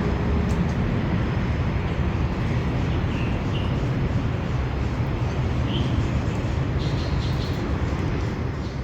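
Steady low rumbling background noise, with a few faint short high chirps.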